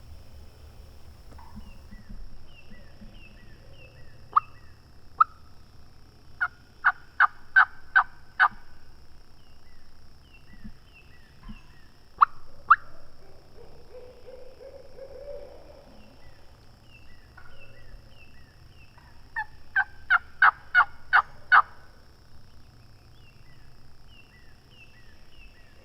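Hen wild turkey calling close by: short sharp notes in three runs, about six in quick succession, then a pair, then about seven more. Small birds chirp faintly throughout.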